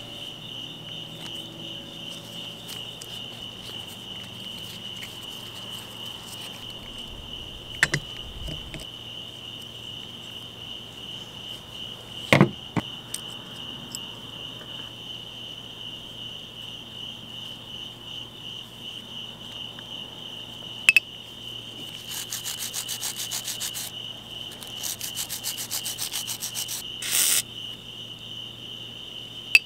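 Rubbing and brushing of small Shimano Deore XT rear derailleur parts, the jockey wheels and their bushings, in a plastic bowl of soapy cleaner, with a few sharp clicks. A steady high pulsing trill runs throughout, and two spells of rapid buzzing come in near the end.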